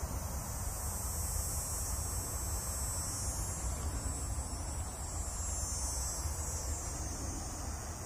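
A steady, high-pitched chorus of insects, under a low rumble of wind on the microphone.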